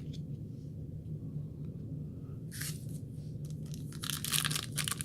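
A foil trading-card pack wrapper being handled, with a brief rustle about halfway through, then crinkling and tearing near the end as it is opened.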